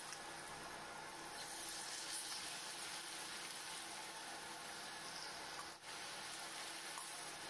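Marinated prawns frying in hot coconut oil in a pan: a steady sizzling hiss, with a brief break about six seconds in.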